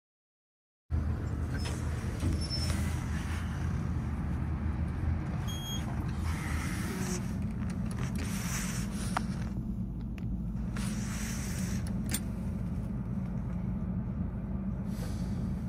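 Steady low rumble inside the car of a Schindler roped hydraulic elevator, starting about a second in after dead silence, with a few faint clicks from the car's push buttons.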